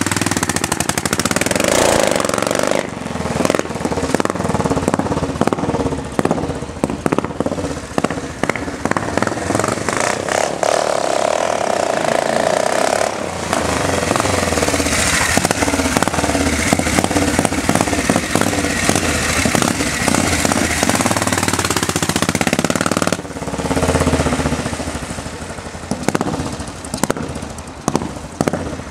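Classic British scrambler motorcycle engine running loud with a rapid, rough exhaust beat, revving up and down as it is ridden and accelerated.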